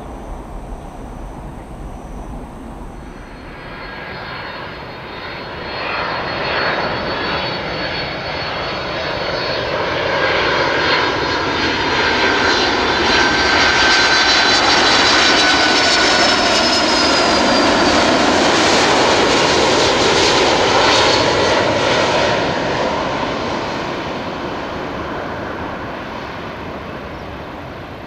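Boeing 767 freighter jet passing low on final approach with gear down. The engine noise builds over several seconds, is loudest in the middle and then fades. Thin high whines slide slowly down in pitch as it goes by.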